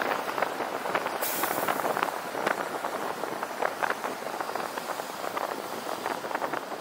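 Car driving: a steady rush of road and wind noise with many irregular crackles, and a brief high hiss a little over a second in.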